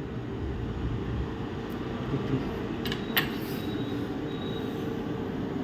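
Steady low mechanical hum in a workshop room, with a few light clicks about three seconds in from parts being handled during laptop disassembly.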